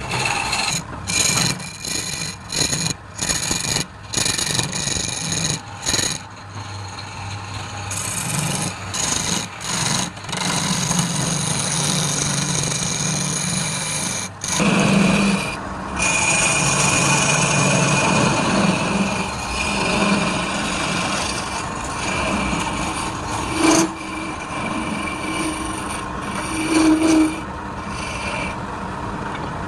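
Woodturning tool cutting a spinning wood blank on a lathe: a scraping, shaving noise over a steady high whine. The cutting breaks off in many short gaps during the first ten seconds, then runs on more steadily.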